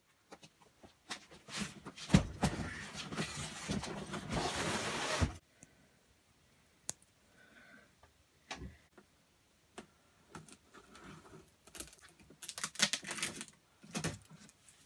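A cardboard box being handled and opened: bursts of scraping and rustling with sharp clicks. There is a long loud stretch in the first few seconds and another burst near the end.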